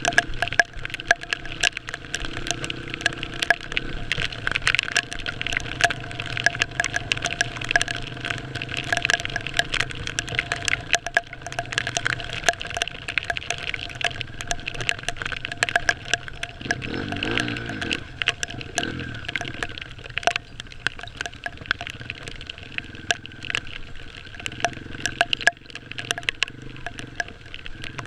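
Dense crackling and popping of rain and splashed water striking a waterproof camera housing on a dirt bike riding a flooded mud track, over a muffled, steady engine drone whose pitch shifts briefly about two-thirds of the way through.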